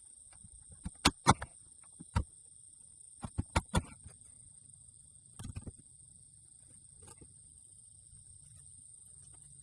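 Irregular sharp knocks and taps of hand work on a wooden garden shed, with a quick run of four knocks about three seconds in, over a steady high-pitched insect trill.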